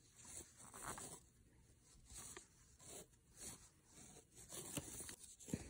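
Faint, irregular rustling and scratching of yarn being worked on a metal crochet hook, drawn over the hook and through the fingers while triple crochet stitches are made, with a sharper tick near the end.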